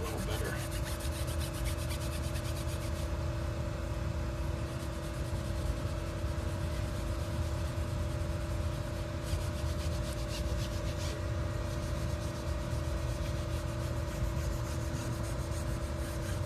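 Sandpaper rubbing on an alloy wheel's rim during curb-rash repair, with a steady machine hum underneath. Stretches of fine rapid scratching come near the start and again around the middle.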